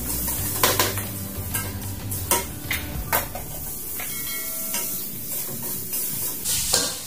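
A metal spatula stirring and scraping in a wok while the food in it sizzles, with repeated sharp clicks of the spatula against the pan. A short clinking, ringing note comes about four seconds in.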